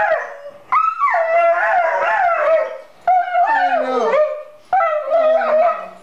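Dog howling and whining in three long, wavering cries that rise and fall in pitch: the excited crying of a dog greeting its owner after six months apart.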